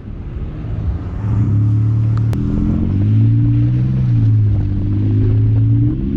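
Toyota Highlander's engine pulling under throttle on a muddy trail, its note rising and falling a few times before easing off near the end. A single sharp click a little over two seconds in.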